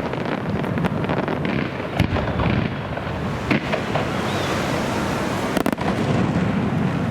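Aerial fireworks display: a continuous rumble and crackle of bursting shells, with sharp bangs about two seconds, three and a half seconds and nearly six seconds in.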